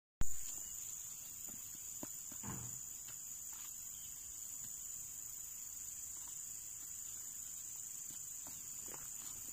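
Steady, high-pitched chirring of crickets in the field. A short thump right at the start, and a few faint knocks and scrapes of a stick working the soil.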